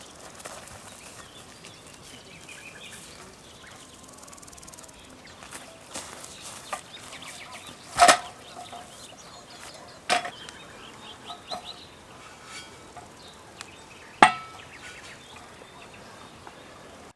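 Three sharp metal strikes, each with a brief ring, spaced about two and four seconds apart, with birds calling in the background.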